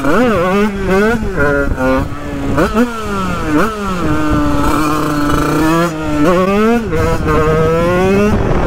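HM dirt bike's tuned two-stroke engine, fitted with a TPR 76 cylinder kit and a Yasuni R4 exhaust, revving hard under acceleration. The pitch climbs and drops back several times as it is shifted up through the gears, holds steady about halfway through, then rises again near the end.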